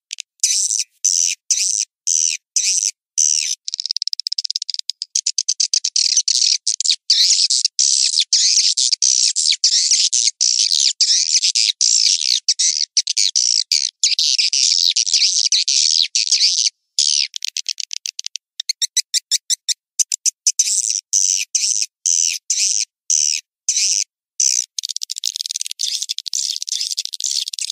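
Recorded swiftlet lure call: edible-nest swiftlets twittering in fast, high chirps, dense through the middle and broken into quicker separate pulses with short gaps near the start and end. It is a calling sound played at swiftlet nesting houses to draw the birds in.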